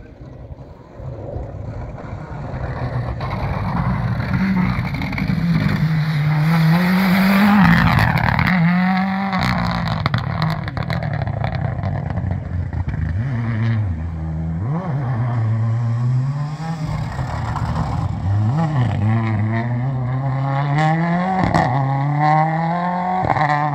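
Rally car engine at full throttle on a gravel stage, growing louder as the car closes in. The revs climb and then drop sharply several times as the driver lifts off and changes gear through the corners.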